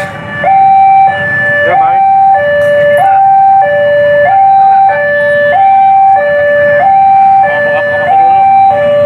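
Level-crossing warning alarm sounding while the barrier is down for an approaching train: a loud electronic two-tone signal alternating evenly between a higher and a lower tone, about one high-low pair every second and a quarter.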